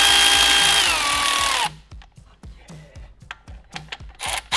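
Milwaukee cordless power tool running a bolt into a new water pump: a motor whine that holds steady, then drops in pitch as the bolt seats and cuts off after about a second and a half. Light ticks follow, and another short burst of the tool comes near the end.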